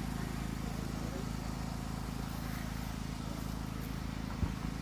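A steady low hum with faint voices in the background, and a single thump near the end.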